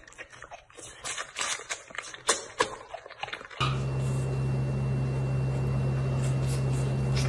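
White tiger cub suckling noisily on a milk bottle: a run of irregular wet clicks and smacks. A little over three and a half seconds in these stop abruptly and give way to a steady low hum with a faint high whine.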